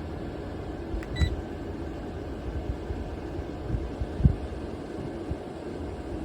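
Rechargeable camping fan running, its airflow rumbling on the microphone with a few low thumps, and one short electronic beep about a second in.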